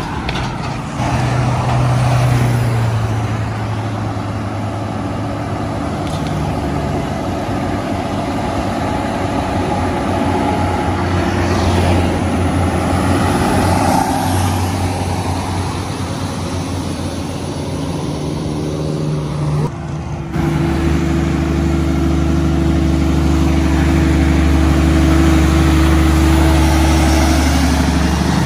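Heavy diesel tractor-trailer trucks driving past close by, engines running under road and tyre noise, with cars going by. The sound changes abruptly twice; from about two-thirds of the way in, one nearby truck's diesel engine runs steadily and loud.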